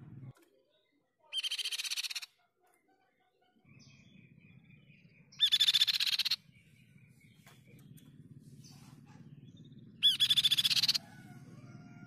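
Crescent-chested babbler (tepus pipi-perak) singing three loud, rapid trills, each about a second long and about four seconds apart.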